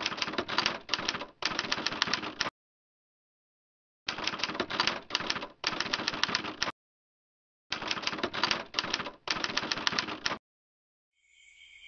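Typewriter sound effect: rapid key clatter in three runs of about two and a half seconds each, separated by brief silences, keeping time with title text being typed out letter by letter.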